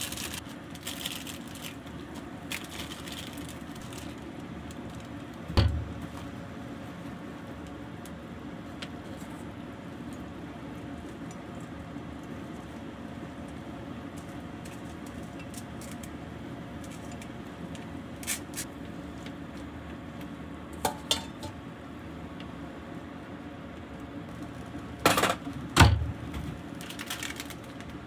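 Cooking at a kitchen counter with a steady low hum underneath: scattered clinks and knocks of utensils against a steel pot, and two louder knocks near the end as a bowl is set down on the steel counter.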